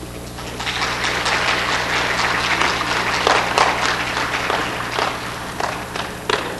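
Audience applauding: a dense patter of hand claps rises about half a second in and thins out toward the end, over a steady low hum.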